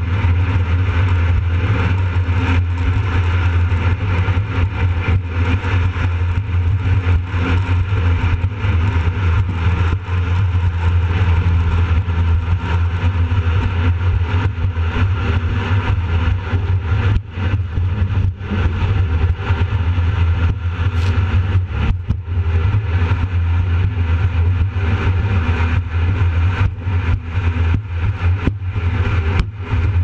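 Jet boat running at speed over choppy lake water: a steady engine and water-jet drone mixed with rushing wind and water noise on the exposed bow microphone. There are brief dips in the sound several times in the second half.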